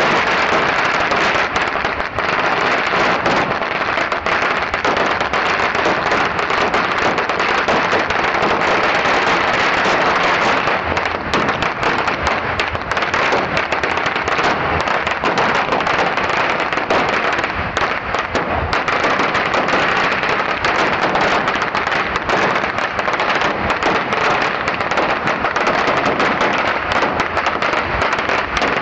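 A very long pagara, a Surinamese string of firecrackers, going off in a dense, unbroken rapid crackle of small bangs.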